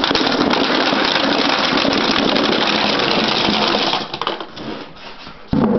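A load of 2-inch vending capsules pouring into a capsule vending machine. It is a dense, steady clatter that thins to scattered clicks about four seconds in.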